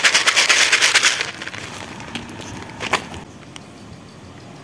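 A cat-food container being shaken, with a fast, continuous rattle, to call cats to be fed. The shaking stops about a second in, followed by a couple of soft clicks.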